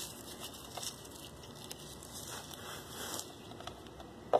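Fingers crumbling and rubbing dry, flaky material in a plastic basin, with soft crackling and rustling. A single sharp knock comes near the end.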